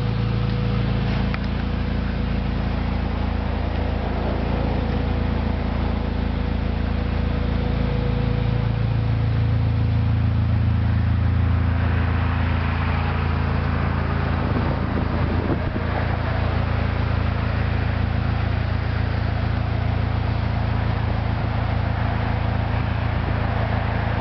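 A vehicle engine running steadily, with wind on the microphone; the low hum swells about a third of the way in.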